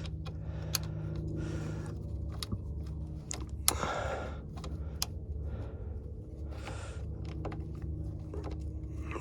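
Small sharp metal clicks and taps of battery cable connections being fastened by hand, including a wing nut, over a steady low hum.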